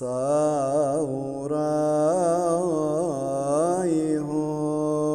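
A solo male voice chanting Syriac Orthodox liturgical chant, a winding melismatic line full of quick ornamental turns that settles onto a long held note about four seconds in.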